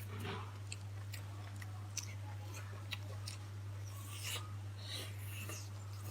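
Close-miked eating: scattered soft clicks and smacks of chewing, over a steady low hum.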